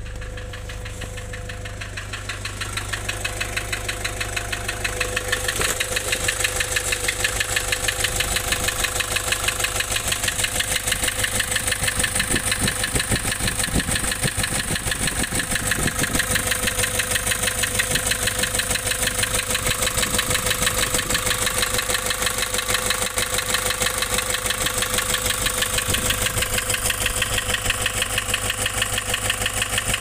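Nissan ZD30 3.0-litre four-cylinder diesel idling with a rapid, rhythmic knocking pulse, which grows louder over the first six seconds and then holds steady. It is a rough idle that the owner puts down to loss of compression.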